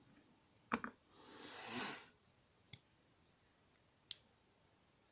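Light, sharp clicks of small metal lock pins being handled and set down as a pin-tumbler lock is taken apart: a double click about a second in, a short soft rustle, then two single clicks a second or so apart.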